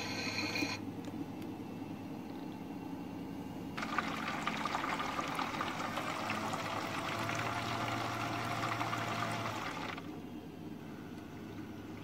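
Water running into the drum of a modified toy Miele washing machine. The rush starts about four seconds in and cuts off about six seconds later, with a low steady hum joining for its last couple of seconds.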